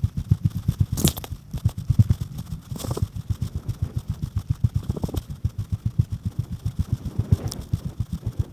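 An engine idling with a rapid, even low putter, with a few brief clicks or knocks over it.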